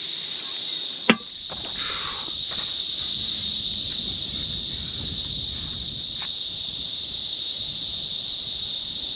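Night insects chirring: one steady, unbroken high-pitched drone, with a single sharp click about a second in.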